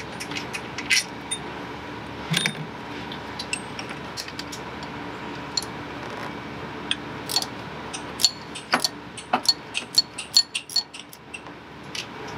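Wrench on the alternator's mounting bolts: sharp metallic clicks and clinks, irregular, coming in quick runs that are thickest in the second half. A faint steady hum runs underneath.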